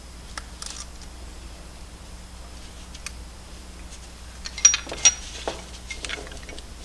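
Metal parts clicking and clinking as an aluminum motor plate and stepper motor are handled and turned over on a bench. About five seconds in comes a quick cluster of sharp clinks, the loudest two with a brief ringing tone, followed by a couple of softer knocks.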